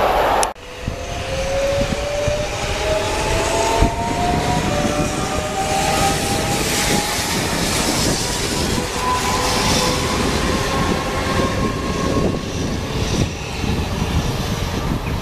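Double-deck SNCF TER electric multiple unit running past and drawing away, its traction motors whining in several tones that rise slowly in pitch, over steady wheel and rail rumble. A louder rail sound cuts off abruptly about half a second in.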